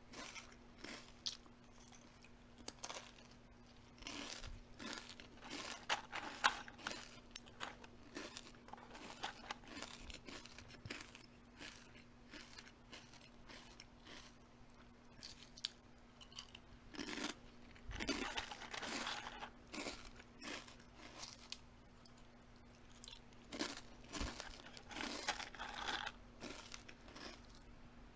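Crunchy food being bitten and chewed close to the microphone: a run of crisp crunches with short pauses, busiest about two-thirds of the way through.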